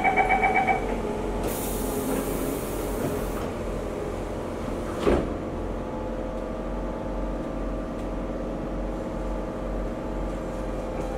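MRT train doors closing: a rapid run of door-warning beeps at the very start, a high hiss of about two seconds, then the doors knock shut about five seconds in. After that the carriage settles into a steady hum.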